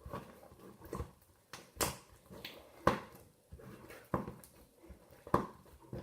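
Sticky homemade slime being squeezed and pulled apart by hand, giving short squelching, peeling sounds about once a second; the slime is still too sticky.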